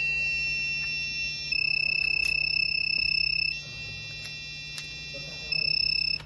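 Electronic buzzer from a breadboard circuit sounding continuously. It switches every two seconds or so between one steady high beep tone and a quieter chord of several tones, and cuts off just before the end.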